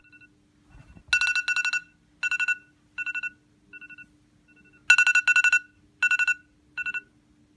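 iPhone alarm tone ringing: a cluster of rapid high-pitched beeps followed by shorter, fainter repeats like an echo. The pattern starts again about four seconds later, louder.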